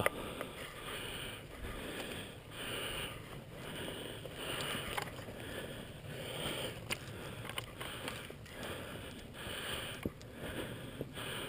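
Footsteps walking through dry fallen leaves at a steady pace, a rhythmic rustling crunch about once a second, with a few sharp clicks of carried gear.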